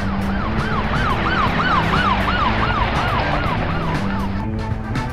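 Toy ambulance's electronic siren wailing in a fast rise and fall, about three times a second, stopping near the end.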